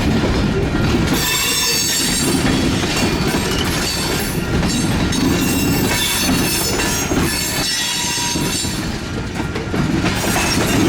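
Freight train rolling past with a steady rumble of steel wheels on rail. High-pitched wheel squeal runs from about a second in until near the end.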